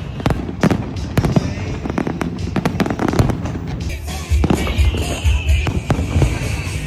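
Aerial fireworks going off in a rapid series of sharp bangs and crackles. About four seconds in, deeper heavy booms take over.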